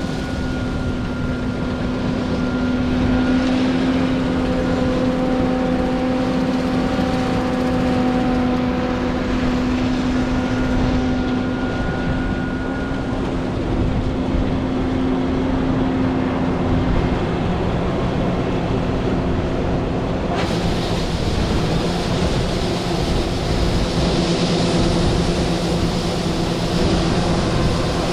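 John Deere 9500 combine running steadily while harvesting soybeans: its six-cylinder turbocharged diesel engine drones with a steady hum under the rushing noise of the threshing machinery. About twenty seconds in the sound shifts abruptly, with much more hiss in the high range.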